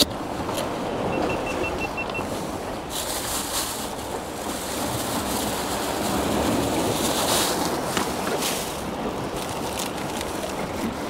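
Sea surf washing against jetty rocks: a steady, even rushing of water. There is one sharp knock right at the start.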